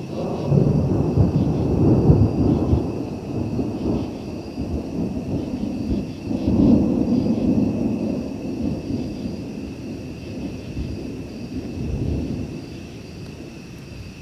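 Loud rolling thunder from a nearby lightning strike. It starts abruptly, swells a second time about seven seconds in, and then rumbles away over the last few seconds.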